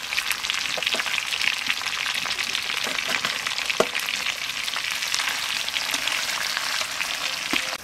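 Fried chicken pieces and freshly added marinade paste sizzling and crackling in hot oil in a steel wok, with a few sharp clicks.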